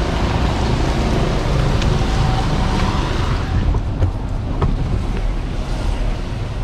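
Steady rushing street noise with a low rumble and wind on the microphone; a little past halfway the hiss drops away and the sound turns duller inside a bus cab, the low rumble going on with a few light knocks.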